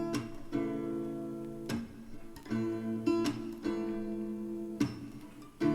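Background music: acoustic guitar strumming chords, an instrumental gap between sung lines.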